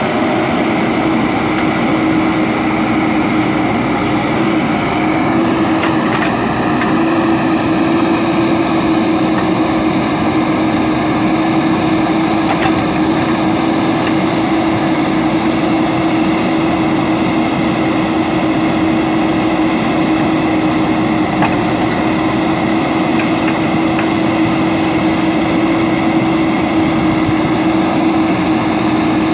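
JCB 3DX backhoe loader's diesel engine running steadily under load while the backhoe arm digs, with a steady hum over the engine noise.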